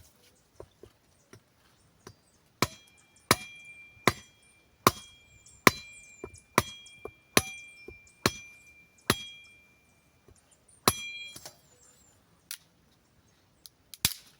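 A metal blade chopping into wooden sticks: a run of about nine sharp blows, roughly one a second, and one more a little later, each blow followed by a brief metallic ring from the blade.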